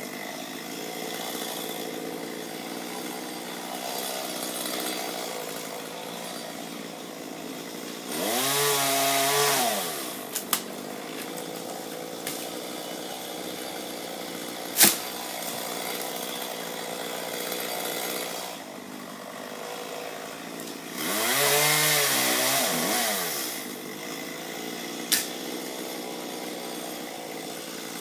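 Two-stroke chainsaw idling, revved up twice for about two seconds each, its pitch rising then falling back, with a few sharp knocks in between.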